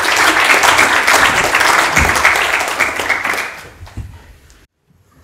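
Audience applauding, which fades away about four seconds in; the sound then cuts out completely for a moment near the end.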